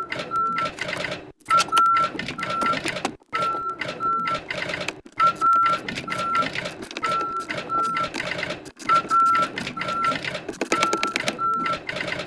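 Fast-forwarded work sound of a small ratchet and extension undoing blower motor mounting bolts: a rapid, chattering run of clicks, cut by brief gaps, with a short high tone that keeps repeating.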